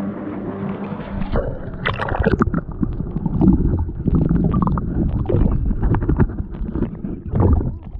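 About a second of steady engine drone from jet skis out on the lake, then the camera goes under the water and everything turns muffled: irregular low gurgling and sloshing knocks of water against the submerged microphone.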